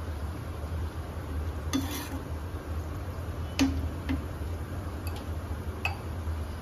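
Metal slotted spoon stirring chickpea curry in a nonstick frying pan, scraping and knocking against the pan a few times, the sharpest clink about three and a half seconds in. A steady low hum lies underneath.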